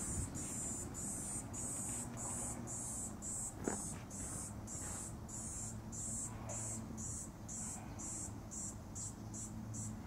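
A dying cicada calling in short, high-pitched buzzing pulses, about two to three a second, coming quicker toward the end. A single faint click sounds about four seconds in.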